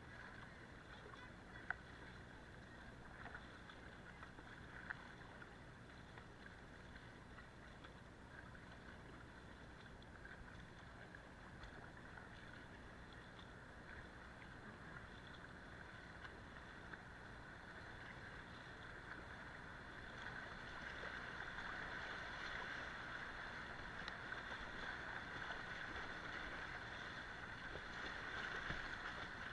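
Steady rush of river water past a paddled kayak, with a couple of sharp knocks in the first few seconds. The rushing swells from about two-thirds of the way through as the boat runs into a rapid.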